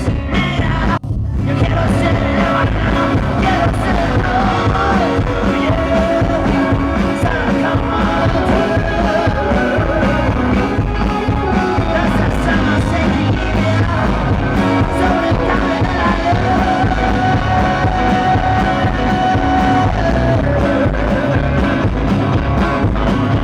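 Rock band playing live at full volume, with a heavy drum and bass low end and sustained pitched guitar or vocal lines over it. The sound cuts out very briefly about a second in.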